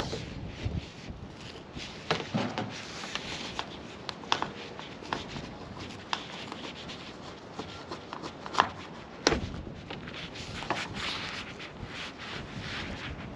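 Scattered sharp clicks and light knocks over low rubbing: hand work on a pickup truck's roof, handling its plastic roof covers and trim. One click about 8.6 s in stands out as the loudest.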